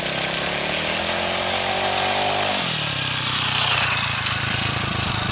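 Tillotson 225 single-cylinder racing engine of a homemade hybrid dirt bike at full throttle on a launch. Its pitch climbs steadily, drops sharply about two and a half seconds in, then runs on at a lower pitch.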